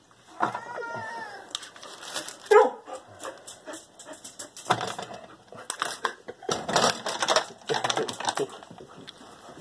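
A dog begging for food: a whine falling in pitch near the start, then a sharp bark about two and a half seconds in, the loudest sound, followed by further short bursts of barking and clatter. Plastic fork and takeout container are handled alongside.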